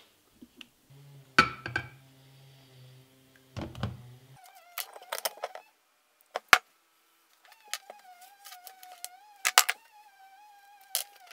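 Clicks and knocks of a glass plating jar with a wire clip lid and alligator clips being handled on a wooden bench. A faint low hum runs under the first few seconds, and a wavering whistle-like tone comes in the second half.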